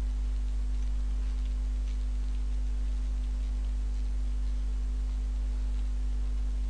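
Steady low electrical hum, with faint, irregular computer-keyboard keystroke clicks as text is typed.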